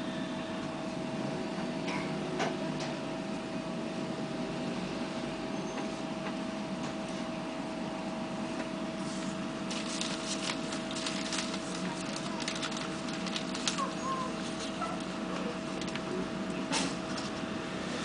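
Steady electrical hum of a Bogdan trolleybus's onboard equipment, heard from inside the cabin, with scattered clicks and rattles in the second half.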